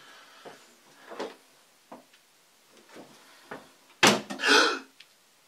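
Mirrored bathroom medicine cabinet being handled with a few soft knocks, then its door shut with one sharp bang about four seconds in, followed by a brief noisy tail.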